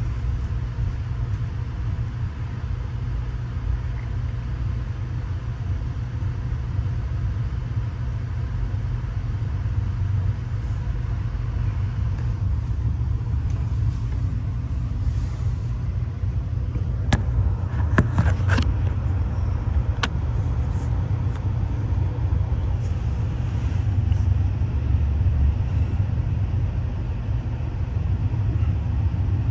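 Moving passenger rail car heard from inside the sleeper: a steady low rumble of the wheels and running gear on the track, with a few sharp clicks a little past halfway.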